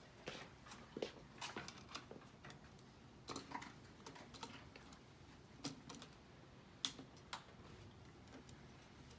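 Faint, irregular clicks and taps of hand tools being picked up and handled.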